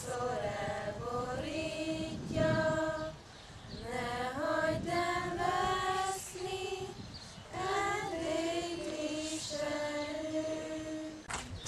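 A group of schoolchildren and adults singing together without accompaniment, in slow phrases of long held notes with short pauses between them. A sharp click sounds just before the end.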